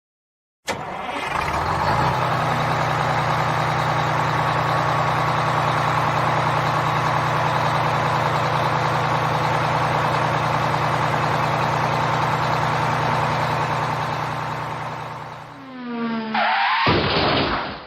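A vehicle engine runs steadily, starting abruptly about half a second in. Near the end it dies away and a short sound falls in pitch before cutting off.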